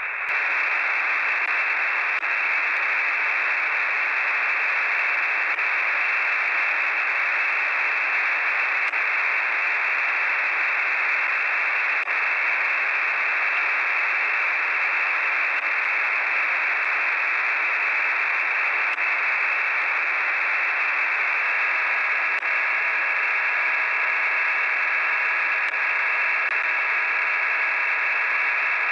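Steady shortwave static hissing through a web SDR receiver in upper-sideband mode on a quiet band around 19730 kHz. About two-thirds of the way in, several faint steady tones come up under the hiss.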